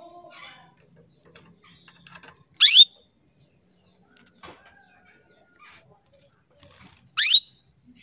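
Female canary calling: two short, loud calls that rise sharply in pitch, about four and a half seconds apart, with faint chirps between. This is the call a hen canary uses to draw males into singing.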